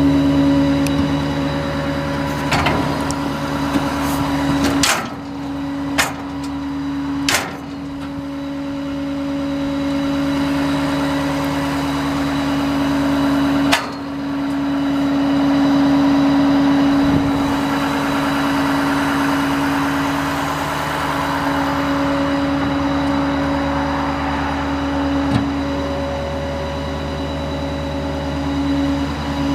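Ford F-550 utility truck's engine running steadily at idle with the PTO engaged: a constant hum with a steady pitched note. A few sharp knocks break in over the first half.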